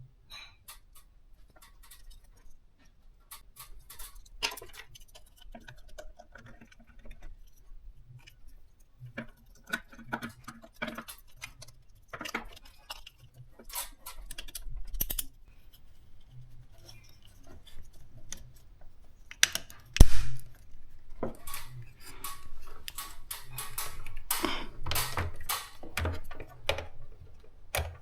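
Irregular clicks, rattles and knocks of small hard objects being handled, with one loud sharp knock about twenty seconds in and a busier stretch of clattering after it.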